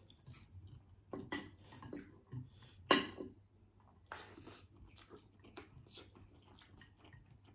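Quiet close-up eating sounds: soft chewing and mouth smacks with scattered small clicks of dishes, and a sharper click about three seconds in.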